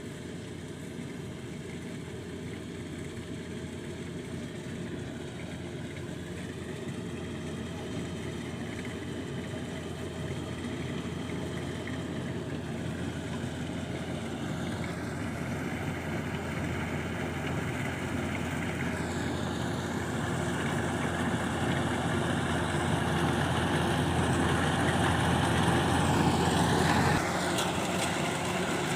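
Kubota 105 rice combine harvester running: a steady diesel engine and machinery sound that grows gradually louder, then drops a little shortly before the end.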